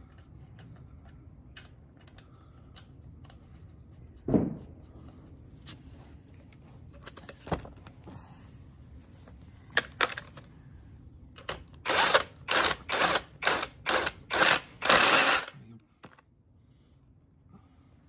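Cordless driver run in about six short trigger bursts and then one longer run, tightening a bolt on an engine bracket. A single knock and a few clicks of handled metal parts come before it.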